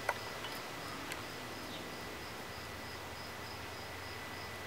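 Faint insect chirping, an evenly pulsing high trill of several pulses a second, over a quiet outdoor background hiss. Two light ticks come in the first second or so.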